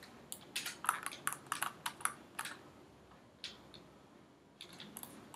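Clicks from a computer keyboard and mouse while a 3D model is being worked on, in quick irregular runs: a rapid string of clicks in the first half, a pause, then a few more near the end.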